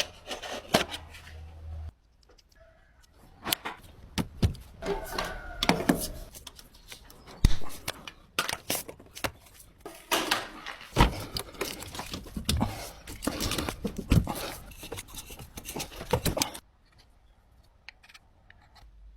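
Irregular clicks, clinks and scraping of metal gas fittings and tools being handled during assembly, with a few sharper knocks; the handling stops a few seconds before the end.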